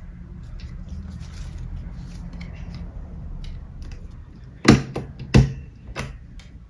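Handheld stapler pressed shut twice in quick succession, two sharp clacks a little over half a second apart, stapling cut paper sheets onto a ribbon; soft paper-handling clicks and rustles before them.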